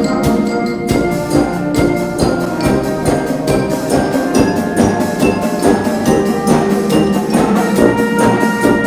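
Music with a quick, steady percussion beat under sustained pitched notes that ring like mallet instruments or bells.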